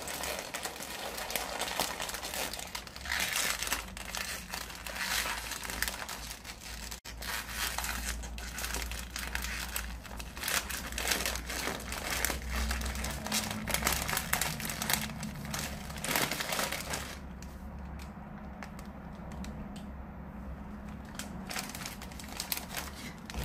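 Crinkly plastic snack bag crackling and crumpling as it is squeezed and pulled at the sealed top to open it. The crinkling thins out to sparse crackles near the end.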